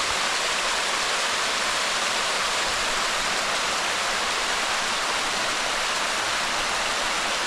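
Waterfall rushing: a steady, unbroken wash of falling water, mostly hiss with little low rumble.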